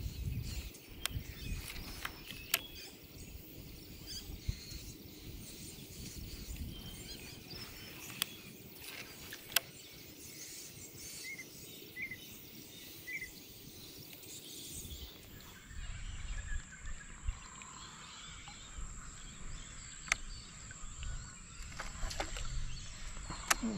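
Faint outdoor ambience by the water with birds calling, including three short chirps about halfway through, and a few sharp clicks scattered through it.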